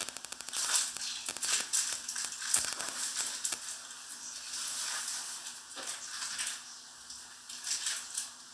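Foil and plastic food packaging crinkling and rustling as it is handled and opened, with a quick run of rapid clicks at the start.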